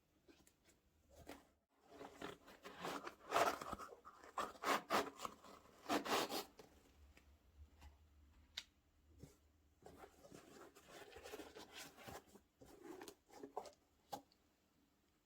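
Rustling and scraping from things being handled, in a run of crackly bursts that are loudest from about two to six and a half seconds in, then softer, scattered rustles later on.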